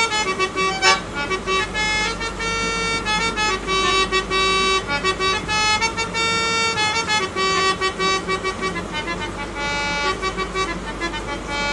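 Hand-pumped harmonium playing a melody of held, reedy notes, several sounding together and changing every fraction of a second to a second, over a low steady rumble.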